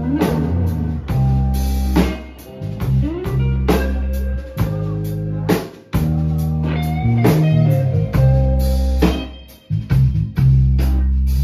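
Live band playing amplified rock music: electric guitars over steady low bass notes, with a drum kit hitting accents and cymbal crashes.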